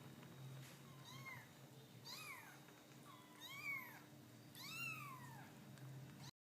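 Domestic cat meowing four times, about a second apart, each short call rising then falling in pitch. A faint steady low hum runs underneath, and the sound cuts off abruptly near the end.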